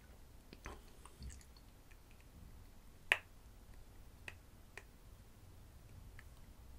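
Quiet room tone with a few faint, irregular clicks; the sharpest comes about three seconds in.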